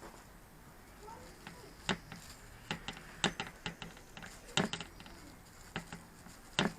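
Irregular light clicks and taps, several spaced unevenly: hands and tools handling a plastic drone shell during a fibreglass-and-resin repair.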